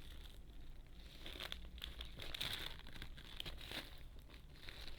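Parcel packaging crinkling and rustling as it is handled, in irregular bursts with small sharp ticks and a bit of tearing.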